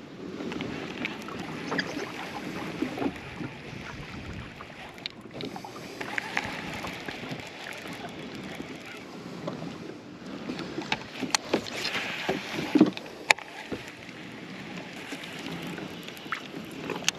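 Water lapping against a plastic fishing kayak's hull, with a few sharp clicks and knocks from handling the baitcasting rod and reel; the loudest clicks come about 11 and 13 seconds in.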